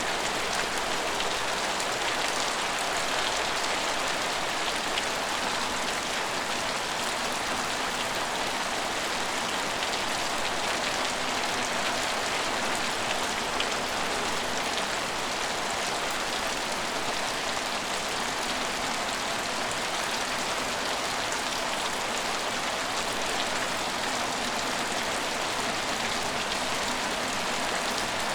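Steady rain falling on a deserted train station, an even hiss with the patter of individual drops striking hard surfaces.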